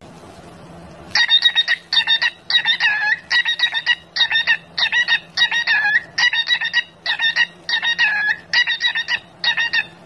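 Cockatiel calling in a fast, even run of short whistled chirps, about two to three a second, starting about a second in.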